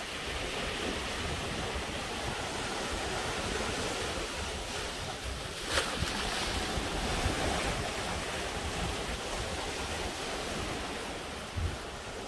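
Small surf waves washing against rocks, with wind buffeting the microphone. A single sharp click about halfway through.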